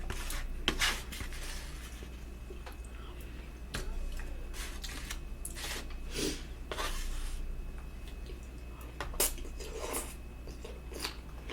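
Eating at the table: a fork clicking and scraping irregularly on a plate, with wet mouth sounds of chewing spaghetti and salad.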